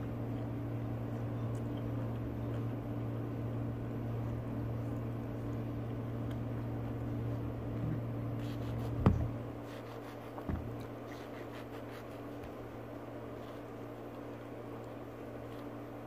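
A knife cutting a peeled mango over a plastic plate, with two sharp knocks of the blade against the plate, the louder about nine seconds in and a smaller one a second and a half later, and faint light ticks of cutting around them. Under it a steady low electrical hum, which drops a little about nine seconds in.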